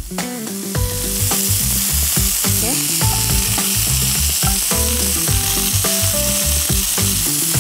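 Chicken kebab skewers shallow-frying in olive oil in a pan: a steady sizzle that grows louder about a second in and then holds.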